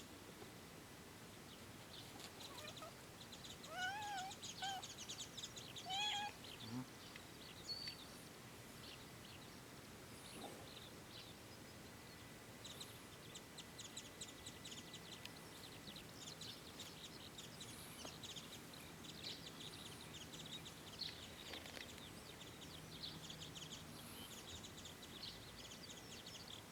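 Faint birds calling, with a few louder short gliding calls around four and six seconds in, over dense faint high ticking.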